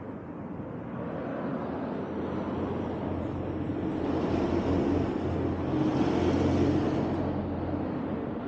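Street traffic: a steady rumble with an engine hum that swells about four seconds in, as a vehicle passes, and eases again near the end.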